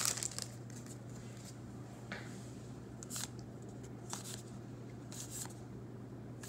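Baseball trading cards being slid one by one off a handheld stack, each giving a faint soft swish, about one a second.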